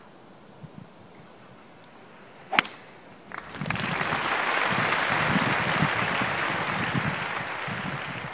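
A golf driver striking a ball off the tee: one sharp crack about two and a half seconds in. About a second later a loud, steady rushing hiss sets in and runs on until just before the end.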